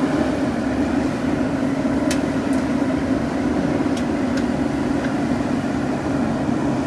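Diesel engine of a JCB backhoe loader running steadily while working, with a few short sharp clicks about two and four seconds in.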